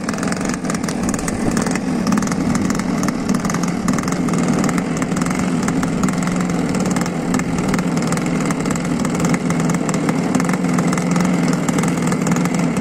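Small gasoline model-aircraft engine on a model boat, running steadily with a fast, rapid firing.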